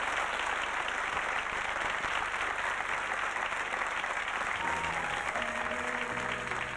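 Studio audience applauding steadily. About four and a half seconds in, the musical introduction to the song starts under the clapping with long held notes.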